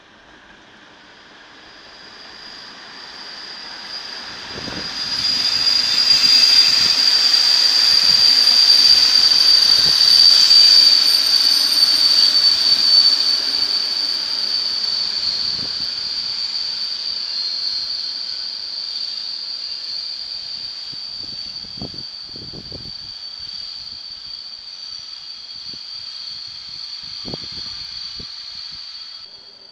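Passenger train moving through a station, its wheels squealing on the rails: a steady high screech that builds, peaks after about six seconds, then slowly fades, with a few low thumps along the way.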